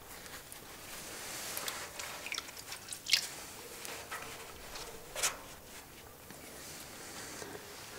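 Close rustling and crackling of a small bird's feathers as fingers stroke and handle it, with two sharper crackles, one about three seconds in and one about five seconds in.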